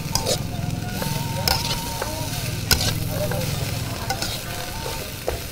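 Long metal spatula stirring and scraping garlic chives and tempeh frying in oil in a wok, with a steady sizzle and several sharp clanks of the spatula against the pan.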